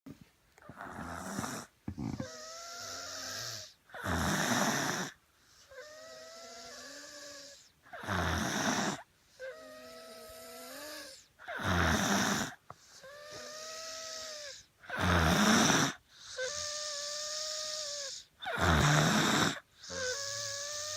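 Snoring in a slow, regular rhythm, about once every three and a half seconds: a short harsh rasp alternating with a longer whistling wheeze. The owner fears it is a sign of some unknown illness.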